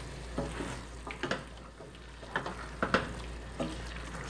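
A wooden spoon stirring potato chunks into minced chicken in a stainless steel pot, giving irregular knocks and scrapes against the pot over a faint sizzle of frying.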